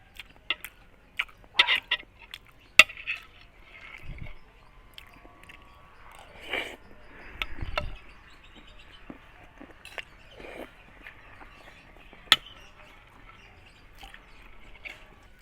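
Close-miked eating of chicken curry: chewing and wet mouth smacks, with sharp clicks and clinks scattered through, a cluster of them in the first few seconds and one more near twelve seconds.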